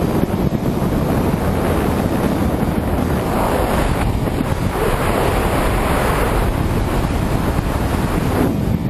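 Wind rushing and buffeting over the microphone during a tandem skydive descent: a loud, steady rush that swells for a few seconds in the middle.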